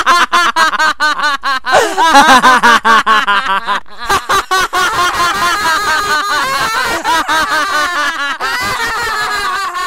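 Several high-pitched voices laughing hard together in quick, repeated ha-ha pulses, with the laughter growing denser and more overlapped from about four seconds in.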